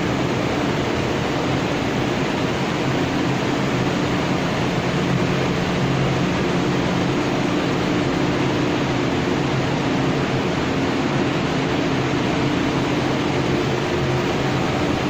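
Industrial machine running steadily: a constant mechanical noise with a low, even hum under it and no change in speed.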